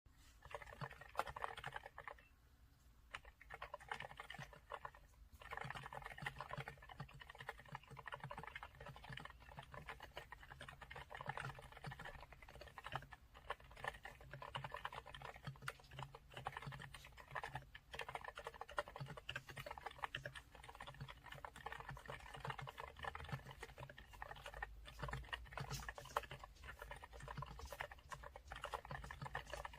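Fast, steady typing on a Yunzii C68 mechanical keyboard with LCET silent Milky Green switches: a soft, muffled stream of keystrokes, with a brief pause about two seconds in and another near five seconds.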